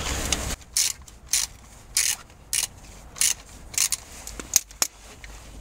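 Socket ratchet clicking in a run of short bursts, roughly one to two strokes a second, starting about half a second in: a bolt on the power steering pump's slider being turned to slacken the power steering belt.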